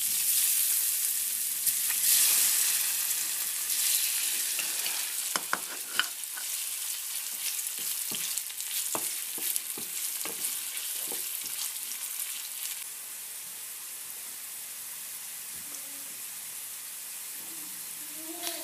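Cut pieces of food tipped into hot oil in a nonstick frying pan, sizzling loudly at once. A spatula then stirs them with a run of sharp clicks against the pan, and after about 13 seconds the sizzle settles into a quieter steady hiss as they light-fry.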